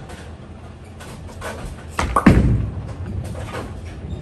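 Storm Phaze 4 bowling ball landing on the wooden lane at release, a sharp thud about two seconds in, then a low rumble as it rolls away down the lane.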